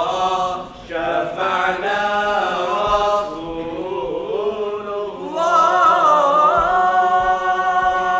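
Male voices singing a devotional nasheed together without instruments, in a slow chanted melody. A brief breath about a second in, and the last phrase is held long near the end.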